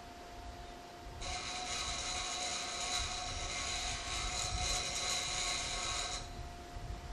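A hiss of escaping compressed air from the stopped Kiha 800 diesel railcar, such as air brakes venting. It starts suddenly about a second in and cuts off about five seconds later, over a low steady rumble.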